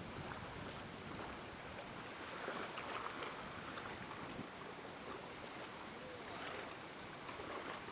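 Choppy water lapping and splashing in small waves, with some wind noise, swelling a little about two and a half seconds in.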